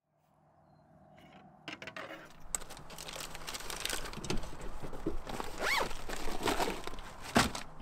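Fishing rods and gear being handled in an open rod locker: scraping, rustling and a run of clicks and knocks, with a brief squeak about halfway through.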